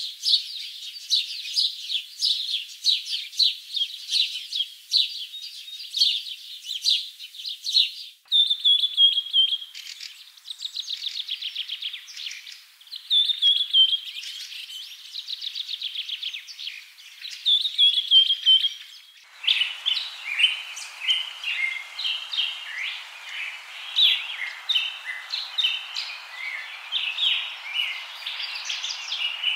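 Birdsong: several small birds chirping and trilling in quick repeated notes. The sound changes abruptly about 8 seconds in and again about 19 seconds in, and after the second change a steady hiss lies behind the birds.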